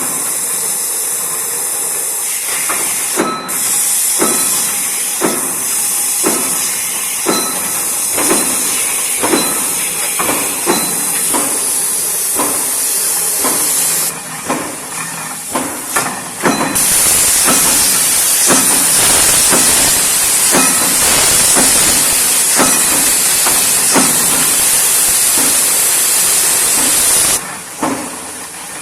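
CNC punch press punching sheet metal, a sharp clack about once or twice a second, over a loud steady hiss that drops out for a few seconds about halfway and stops near the end.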